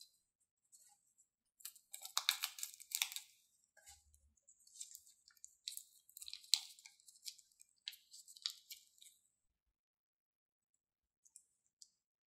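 Thin clear plastic wrapping crinkling under the fingers as a small packet is worked open, in bursts of crisp rustling that are loudest about two to three seconds in. It stops about nine seconds in, with two faint ticks near the end.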